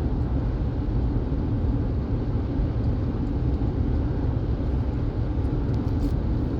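Car driving along a road, heard from inside the cabin: steady low road and engine noise.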